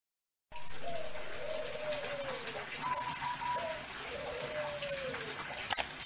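Intro sound effect: after a half-second of silence, a series of long, falling, whistle-like tones over a steady hiss, with a sharp click shortly before the end as the subscribe button is pressed.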